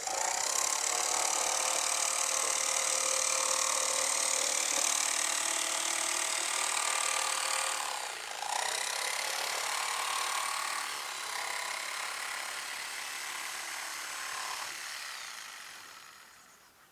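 Table saw running and cutting a shower wall panel to length. It starts abruptly, dips briefly about eight seconds in, then winds down near the end.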